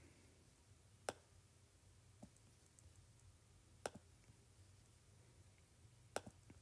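Near silence broken by a few sharp taps on a tablet touchscreen, several seconds apart, with a quick double tap near the end.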